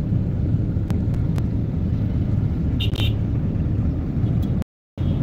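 Steady low rumble of road and engine noise from inside a moving vehicle in traffic, with a few light clicks and two short high beeps about three seconds in. The sound cuts out abruptly near the end, returning only for a moment.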